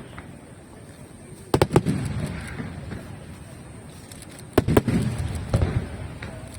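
Aerial firework shells bursting: a cluster of sharp bangs about a second and a half in and another about three seconds later, each followed by a rumbling echo, with a smaller bang just after the second.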